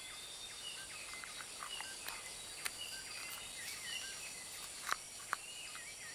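Rainforest ambience: a steady insect hiss and a bird repeating a short warbling whistle. Over it come a few sharp clicks, two close together about five seconds in, as the agouti gnaws at a hard Brazil nut capsule.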